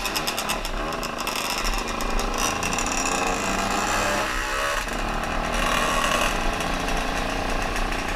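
Small two-stroke moped engines buzzing on the move, the pitch rising and falling with the throttle.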